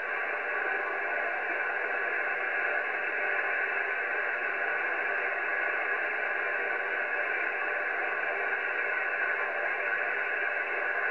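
Steady static hiss from a shortwave ham radio receiver tuned across the 40-metre band in single-sideband mode, with no station coming through clearly. The hiss is held to a narrow, voice-width band of pitch.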